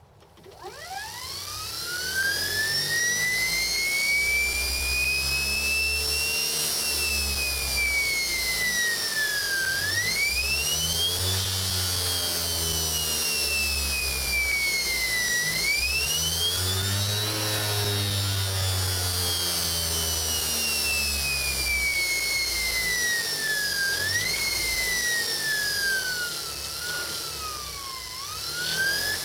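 SepEx DC starter-generator motor spinning up from rest with no load, its whine rising steadily in pitch over about six seconds. The pitch then sags as the motor slows and climbs sharply again when it speeds back up, several times over, with a few quicker dips near the end: the throttle let off and reapplied on a regen-capable controller.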